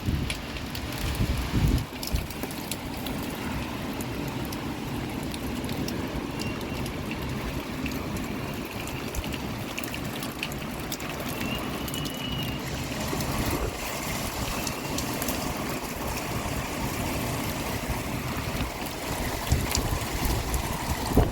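Downpour with rainwater running and gurgling: a steady hiss of rain and flowing water, scattered with small drop clicks.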